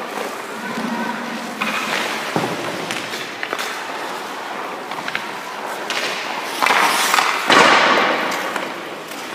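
Hockey skate blades scraping and carving on rink ice in several hissing scrapes, the longest and loudest near the end, with a few sharp knocks.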